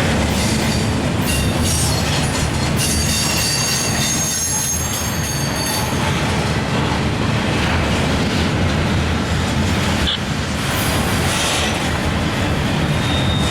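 CSX intermodal freight train rolling slowly past, with a steady rumble of wheels on rail. Thin high wheel squeal comes in from about a second and a half to six seconds in.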